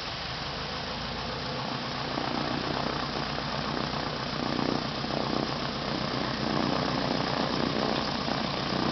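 Cub-type floatplane's piston engine running at low power as the plane taxis on the water, growing steadily louder from about two seconds in as it approaches.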